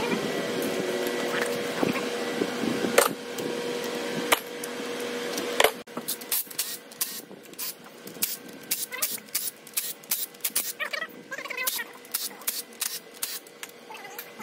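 A few sharp metal knocks over a steady hum, then a hand ratchet clicking in short quick runs as bolts are backed out of an LS engine block.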